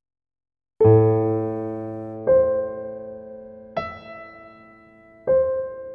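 Slow piano music: after a short silence, four chords are struck about a second and a half apart, each left to ring and fade, the third one higher.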